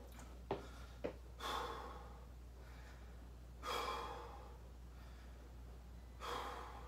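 A man breathing heavily to catch his breath after exercise: three long, loud exhales about two and a half seconds apart. Two short clicks come in the first second.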